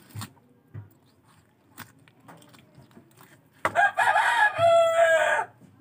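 Knife scraping along a small fish in short strokes about every half second. About three and a half seconds in, a loud pitched animal call lasting about two seconds drowns it out.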